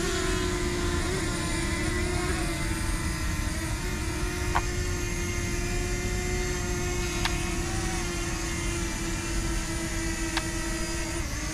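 Small quadcopter drone hovering in the air, a steady buzzing whine of its propellers that holds one pitch, over a low rumble, with three faint clicks.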